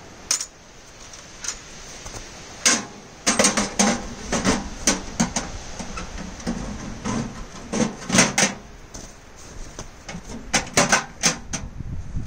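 Steel ammo can's lid being handled with gloved hands: a run of irregular metal clicks and knocks, sparse at first and thickest from about three seconds in.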